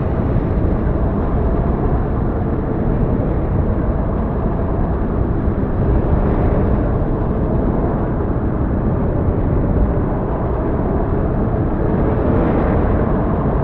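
Strong wind buffeting the microphone in a snowstorm: a loud, steady low rumble that cuts off suddenly near the end.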